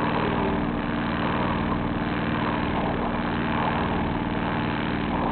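Sailboat's engine running at a steady speed while motoring under way, with a constant hiss of wind and water over it.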